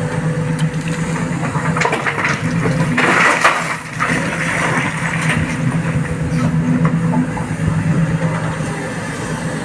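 Heavy diesel machinery engine running steadily, with a burst of rushing, clattering noise about three seconds in that lasts under a second.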